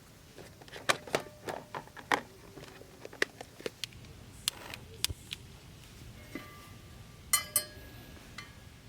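Small hard objects being handled: a run of sharp clicks and knocks, then two ringing clinks of metal or glass near the end.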